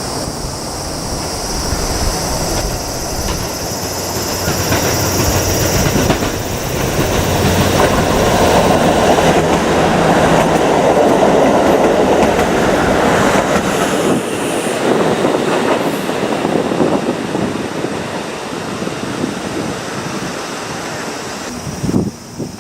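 KIYA 95 diesel track and contact-wire measuring train running past, its wheels clacking over the rail joints. The noise builds to a peak about ten seconds in and then fades.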